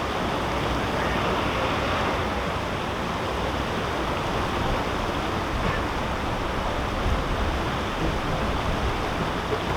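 Steady rushing of water, an even noise with no breaks.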